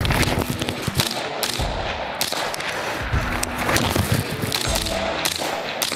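AR-15-style rifle firing a string of shots, with music underneath.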